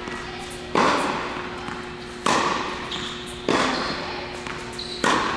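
Tennis balls struck by rackets in an indoor hall: four sharp pocks about a second and a half apart, each trailing a long echo.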